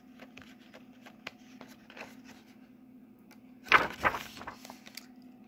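A large paper page of a hardcover picture book being turned by hand, a loud papery swish about two-thirds of the way in, after faint rustling of fingers on the paper. A low steady hum sits underneath.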